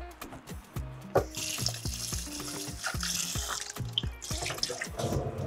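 Kitchen tap running into a sink for about two and a half seconds, starting about a second in, as something is rinsed under it. Background music with a steady beat plays underneath.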